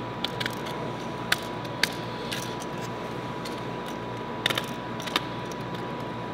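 A hand deburring tool working the rough edges of a cut patch piece, giving scattered light clicks and short scrapes, about ten in all, over a steady faint hum.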